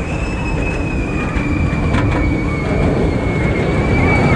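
Steel roller coaster train running fast along its track with a steady low rumble. A single high, whine-like tone is held throughout and falls slowly in pitch.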